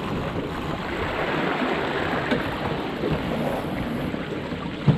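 Water rushing and splashing along the hull of a National 18 sailing dinghy moving under sail, a steady wash of noise. A single knock sounds near the end.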